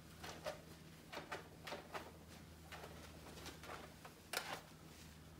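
A cloth wiping in quick strokes over the polished front panel of a wall-mounted Bang & Olufsen Beosystem 4500, buffing off stainless-steel polish: soft swishes about every half second, one louder near the end, over a faint steady low hum.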